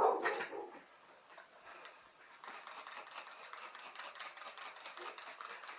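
Rapid, even back-and-forth scrubbing, a rag being rubbed over the bicycle's dirty frame, setting in about two and a half seconds in after a short loud handling noise at the very start.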